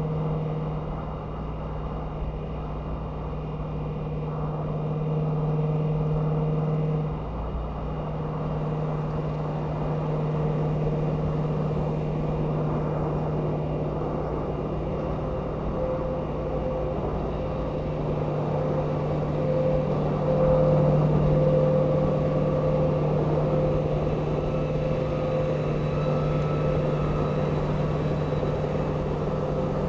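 Steady highway driving noise at cruising speed beside a semi truck: a continuous engine drone with tyre and wind noise, shifting slightly about seven seconds in.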